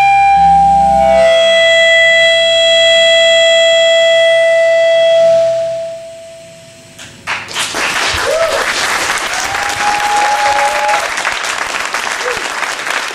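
A live band's final chord is held and dies away about six seconds in. After a brief pause the audience breaks into loud applause, with a few whistles.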